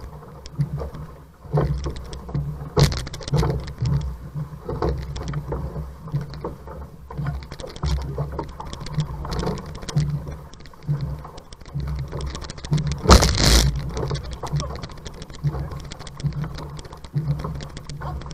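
Outrigger canoe under paddle at sea: water splashing with each paddle stroke, about once a second, over a steady low rumble of water rushing past the hull. A louder rush of splashing comes about 13 seconds in.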